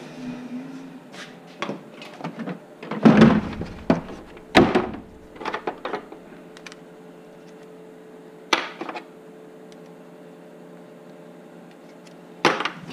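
Hands handling a plastic rotary-tool case and a right-angle attachment: scattered clicks and knocks, the loudest two about three and four and a half seconds in, then a quieter stretch with a faint steady hum and a single click or two.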